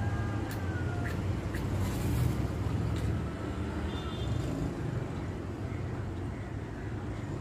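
Steady low background rumble, like distant road traffic, with a few light clicks in the first three seconds as a small face razor is handled.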